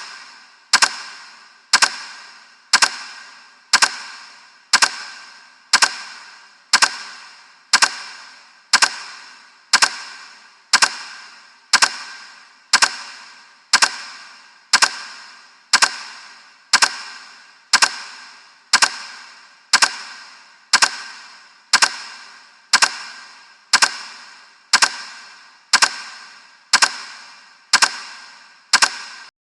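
Timer sound effect ticking once a second: a sharp click with a short ringing tail, repeated steadily and stopping abruptly near the end.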